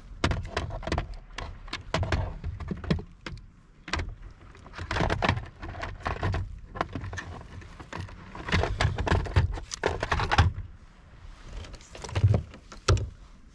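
Irregular clattering, rattling and knocking on a kayak as a freshly caught bluefish and fishing tackle are handled, in clusters, with two heavier thumps near the end.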